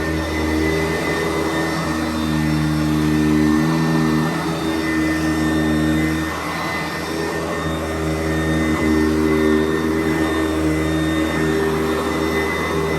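Sanitaire SC889B upright vacuum cleaner running continuously as it is worked over the floor, its motor hum shifting in tone several times.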